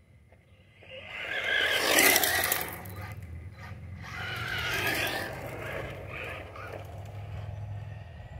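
Remote-control 1970 Dodge Charger model car speeding past close by, its motor and tyres rising to a loud rush about two seconds in and fading, then passing again more weakly about five seconds in.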